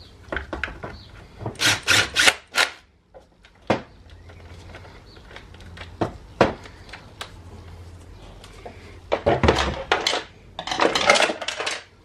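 Metallic clicks, clinks and rattles of hand tools and bolts as a cover is bolted onto the engine, in two busy clusters, one early and one near the end.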